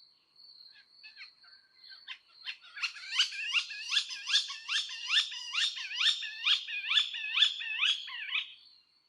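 Sparrow chirping: short repeated chirps, sparse at first, then about three a second until near the end.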